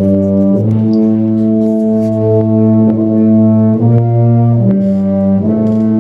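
Middle-school band of wind and brass instruments playing slow, sustained chords that change about every second, with the low brass strong.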